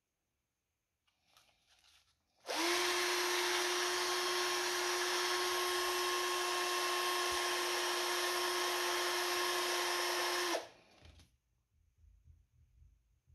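Power drill spinning a wooden dowel held in coarse sandpaper, sanding a model ship's yard. The motor runs at one steady pitch for about eight seconds, then stops suddenly.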